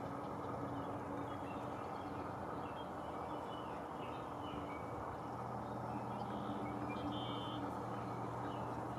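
Steady low background drone with a constant hum, with faint short bird chirps now and then.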